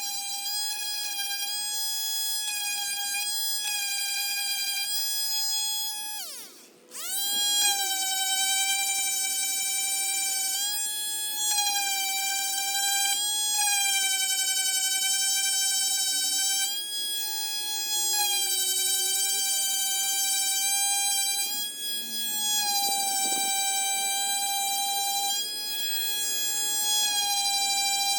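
Electric sander's motor running with a steady high whine. About six and a half seconds in it winds down briefly and then speeds straight back up to the same pitch.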